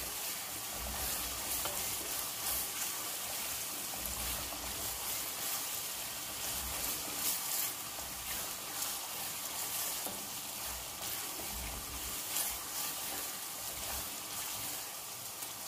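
Seasoning paste frying in oil in a large metal pot, a steady hissing sizzle, while a wooden spatula stirs it with soft knocks now and then.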